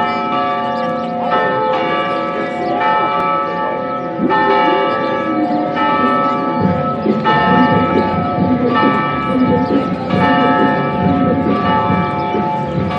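St. Louis Cathedral's bells ringing, a fresh strike about every second or so, each tone ringing on into the next. A murmur of voices sits beneath the bells from about a third of the way in.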